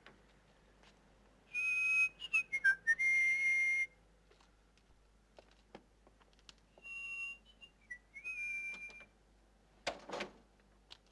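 Whistling in two short phrases of a few notes each, with pitch slides down and back up between the notes.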